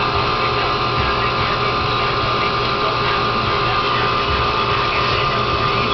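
Steady machine drone with a constant high-pitched whine, unchanging throughout.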